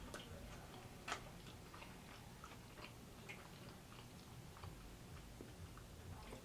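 Faint close-up chewing, with soft wet mouth clicks scattered irregularly and one sharper click about a second in.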